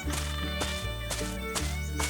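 Upbeat cartoon background music with a bass line and a steady beat.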